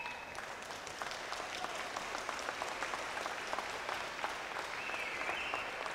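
Audience applauding: many hands clapping at once, with a couple of short high whistles or calls among the clapping.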